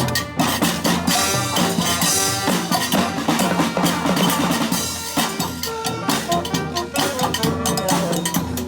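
Brass band playing: drums and percussion keep a dense, steady beat under held horn notes.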